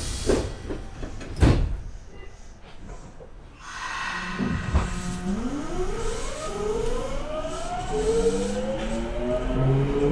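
A subway train pulling away from a station: a knock about a second and a half in, then after a short lull the Hitachi GTO-VVVF inverter sets in with a steady low tone that becomes several whines rising together in pitch as the traction motors accelerate the Nagoya Municipal Subway 5050 series car.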